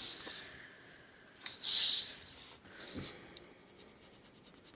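A drawing tool stroking across smooth paper, heard as one hissing scrape of about half a second near the middle. A light knock follows a second later, with faint small ticks around it.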